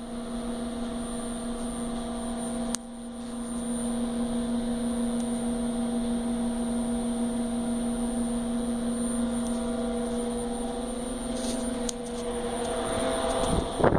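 SMS Sinus Triphases 10 kVA three-phase UPS making its annoying noise: a steady hum of several fixed pitches with a faint high whine above it. A click about three seconds in, after which the hum grows louder, and a noisier rush rises near the end.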